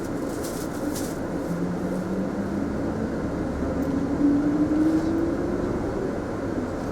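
Mitsubishi Fuso Aerostar city bus heard from inside the cabin, running along with a whine that rises steadily in pitch over a few seconds as the bus picks up speed.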